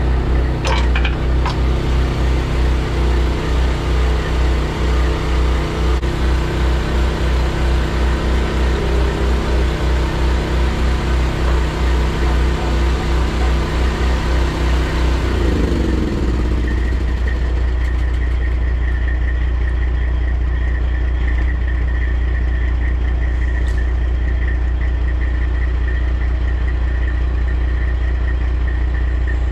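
Diesel engine of a Kenworth T800 tractor, a straight-piped Detroit Series 60, running with a regular pulsing beat. About halfway through its pitch slides down, and it settles into a steady hum with a thin high whine.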